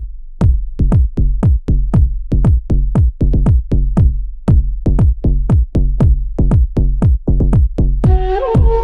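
Electronic dance music: a pounding drum-machine kick beat, with a synth melody coming in near the end.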